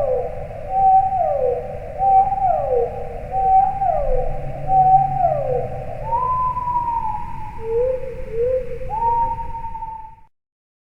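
Recorded whale-like calls used as a sound effect: a held tone that slides down in pitch, repeated five times about every second and a half, then a few higher held and rising tones near the end before it cuts off suddenly.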